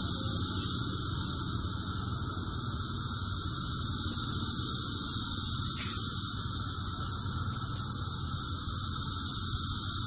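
Dense, steady chorus of periodical cicadas (Magicicada) singing from the trees, a continuous high buzzing drone that swells and eases slightly every few seconds.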